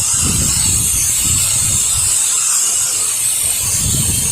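Water spraying from a pressure washer wand, a steady hiss, with wind buffeting the microphone in gusts that ease off in the middle and pick up again near the end.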